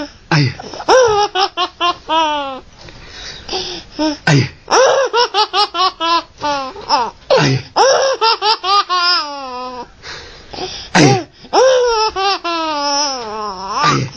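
Baby laughing hard: belly laughs in runs of quick, rapid pulses, several runs one after another with short breaks for breath between them.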